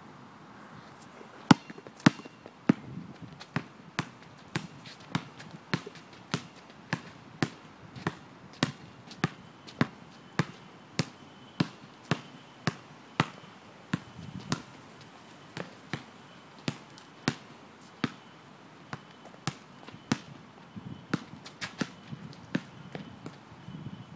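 Basketball being dribbled on an asphalt court, a steady bounce a little under twice a second. The first few bounces are the loudest, and the bouncing quickens near the end.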